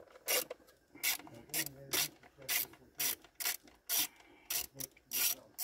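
Small hand ratchet fitted with a Torx bit clicking in short bursts, about two to three a second, as it is worked back and forth on a Torx screw of the engine cover.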